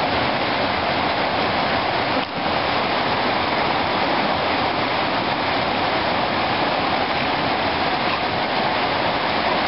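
Fast, shallow mountain stream rushing over rocks and a small cascade: a steady, loud rush of water, with one momentary dip a little over two seconds in.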